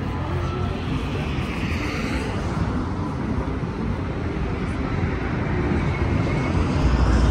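Steady rush of city street traffic, growing louder near the end.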